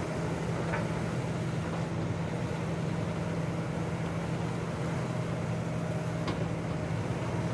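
Cat 323F tracked excavator's diesel engine running steadily as the boom and bucket work, with a couple of faint knocks of stone.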